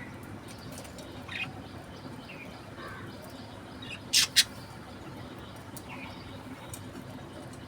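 Budgerigar giving soft, short chirps now and then, with two short, sharp, loud sounds in quick succession about four seconds in.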